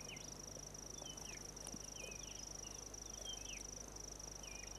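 Faint outdoor nature ambience: insects trilling steadily at a high pitch, with scattered short chirping calls over it.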